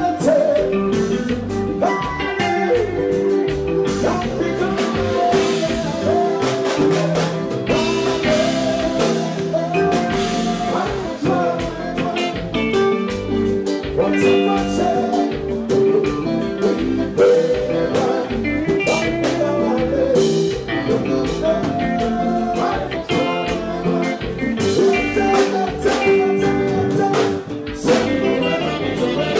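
Live konpa band music with a male lead singer singing into a microphone over a steady drum beat.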